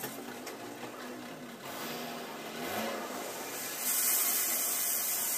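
Noise of building or maintenance work going on outside the room, a steady mechanical hiss that grows louder about four seconds in.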